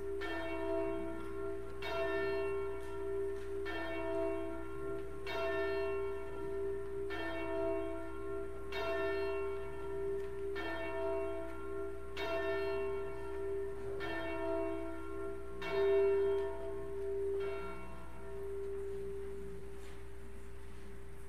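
A single church bell tolling slowly, one stroke about every two seconds, about eleven strokes in all, one near the end louder than the rest; after the last stroke the bell rings on and fades away.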